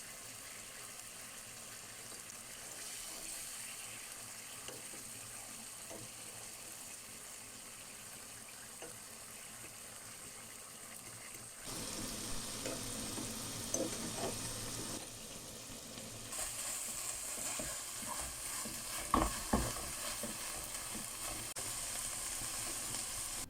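Food sizzling in hot oil in a frying pan, a steady hiss. In the second half it grows louder, with a few knocks and scrapes of a utensil against the pan.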